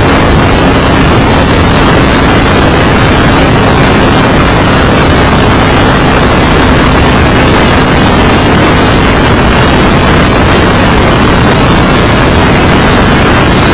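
Indy car running at speed, heard through a car-mounted microphone as a loud, steady mix of engine and wind rush with a faint steady engine note underneath.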